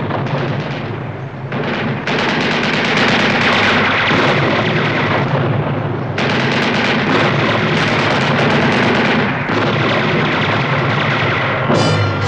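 Dense, sustained machine-gun fire, soundtrack battle effects, with orchestral music coming in near the end.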